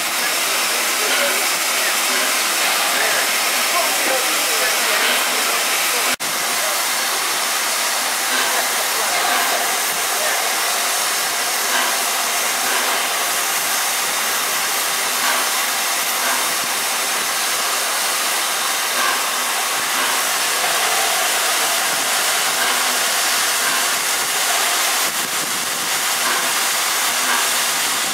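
Steady hiss of steam escaping from a standing steam locomotive.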